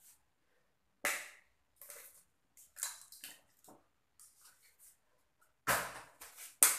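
Eggs being cracked open with a fork and emptied into a glass blender jug of milk: a few sharp cracks on the shell, the loudest near the end, with small splashes and drips between.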